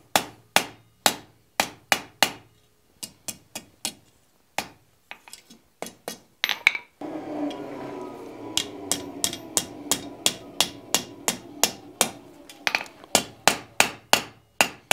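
Blacksmith's hand hammer striking a red-hot wrought-iron bar on the anvil, sharp ringing blows about two a second that come faster near the end, as the curl on the bar's end is forged and back-bent. A steady background noise sits under the blows for several seconds in the middle.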